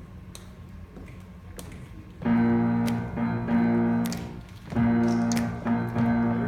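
A few faint clicks, then about two seconds in a keyboard starts playing held chords, three sustained chords with short breaks between them, as the song's introduction.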